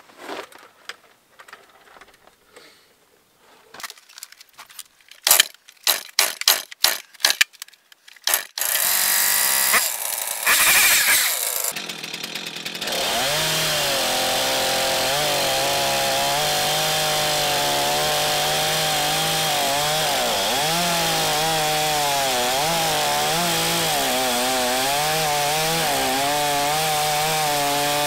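Stihl MS 251 two-stroke chainsaw, started after a few sharp knocks about nine seconds in, then running at high revs as it cuts low into a rowan stump, the engine note dipping and recovering again and again as the chain loads in the wood.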